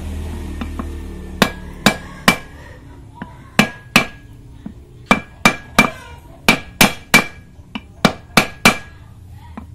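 Hammer blows on a wooden block driving a new front wheel bearing into a Suzuki Carry's brake disc hub. The blows come in quick runs of two or three, about seventeen in all, each with a short metallic ring.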